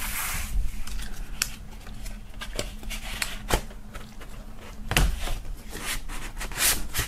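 Paper inner sleeves being slid out of the pockets of a cardboard gatefold LP jacket: paper rustling and scraping against card, with sharp clicks and taps from the handling scattered through.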